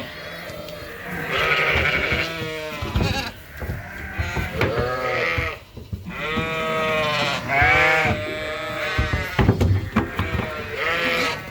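A flock of ewes and lambs bleating, many calls of different pitches overlapping one another.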